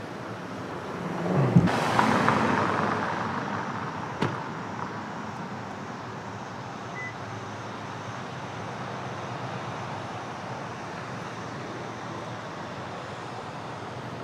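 A car drives past on the street, loudest about two seconds in and fading over the next few seconds, then a steady hum of traffic. There is a single short click about four seconds in.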